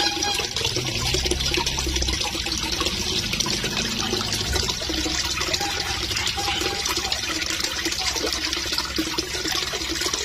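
Koi splashing and churning the water at a pond's surface as they crowd in to feed on floating pellets, a steady wet rush of splashing with no pauses.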